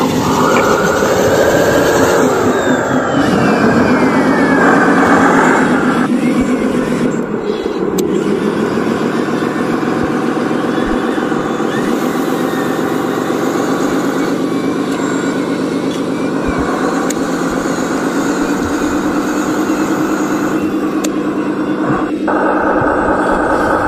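Radio-controlled dump truck driving through dirt, giving a continuous engine-like running sound that rises and falls in pitch, with a higher whine gliding down in the first few seconds.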